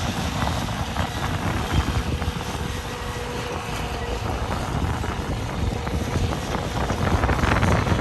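Combine harvester running steadily while harvesting soybeans, a continuous engine and machinery rumble with a faint steady whine.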